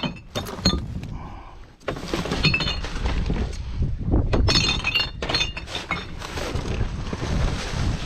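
Glass bottles clinking and knocking against each other as they are lifted from a bin and dropped into a crate already holding bottles: a run of sharp, ringing clinks in several bunches.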